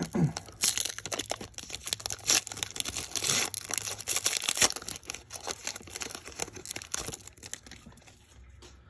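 Foil wrapper of a Panini Prizm baseball card fat pack being torn and crinkled open by hand, a dense crackling rustle that dies down near the end as the cards are slid out.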